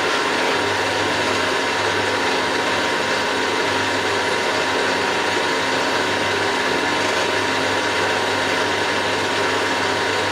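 Milling machine running steadily: a constant whirr of motor and gears with a few steady tones and no change in level.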